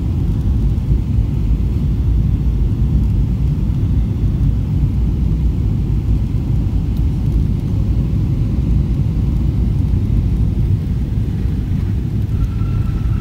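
Steady low rumble of an airliner's engines and rushing air heard inside the cabin on final approach, just above the runway before touchdown. A thin steady whine comes in near the end.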